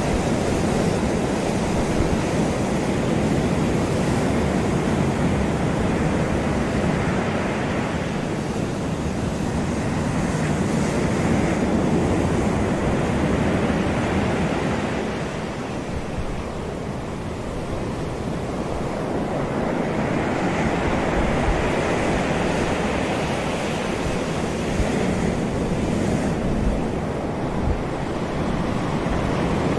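Ocean surf washing onto the beach: a steady rush that swells and eases over several seconds, dipping about halfway through. Wind buffets the microphone with low rumbles.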